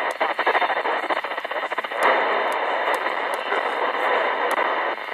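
Strato Plus CB radio's speaker hissing with static and a fluttering, fading received signal, the sound of long-distance skip on the 27 MHz band. A string of sharp clicks runs through it.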